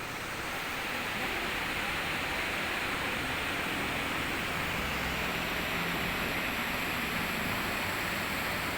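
Rushing water of a river above a waterfall, a steady even rush.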